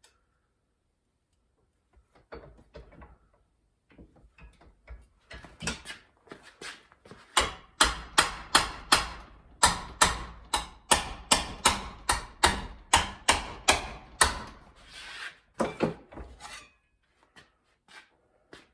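Hammer striking sheet steel while hand forming a repair panel: a few light taps, then a steady run of sharp strikes at about three a second, followed by a brief scrape.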